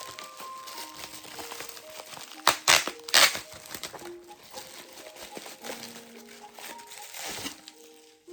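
Packaging being handled and crinkled during an unboxing, with a burst of loud crackling about two and a half to three seconds in, over background music.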